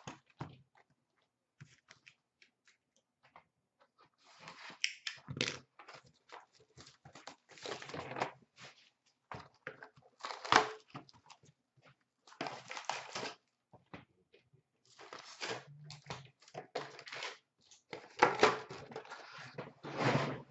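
A cardboard hobby box of 2016-17 Upper Deck SP Authentic hockey cards being torn open by hand, with the packs pulled out and scraps tossed into a plastic bin. The rustling, crackling and tearing come in irregular bursts, with a few sharper crackles among them.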